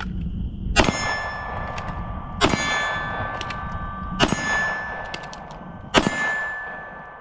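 Steel shooting targets clanging as they are hit, four strikes spaced about 1.7 seconds apart, each ringing on for more than a second.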